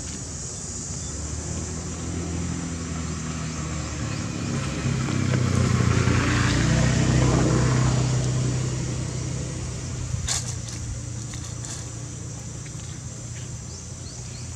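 A motor vehicle driving past: its engine hum grows to its loudest about halfway through and then fades away.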